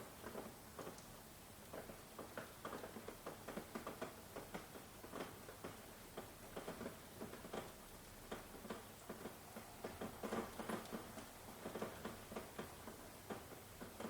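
Rain falling, with irregular drops and drips tapping close by, a few a second, over a soft hiss.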